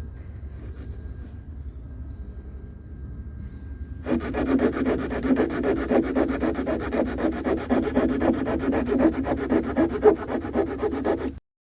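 A hand saw cutting softwood in rapid back-and-forth strokes, starting about a third of the way in and cutting off suddenly near the end.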